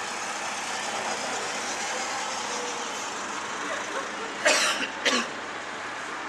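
A person coughs twice, two short harsh coughs about half a second apart, over a steady background hiss of street noise.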